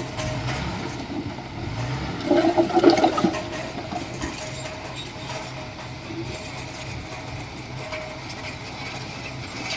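Heavy earthmoving machinery running steadily at work, with a louder rushing surge about two and a half seconds in that lasts about a second.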